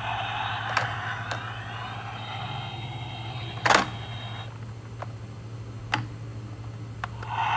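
Electronic engine sound effect from a toy Batmobile's small built-in speaker: a tinny revving rumble that rises and falls, then dies away about four and a half seconds in. Sharp plastic clicks and knocks from the toy being handled come through it, the loudest a little under four seconds in.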